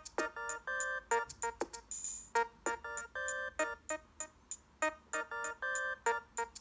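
Samsung Galaxy S III ringtone playing: a quick melody of short keyboard-like notes, its phrase repeating about every two and a half seconds.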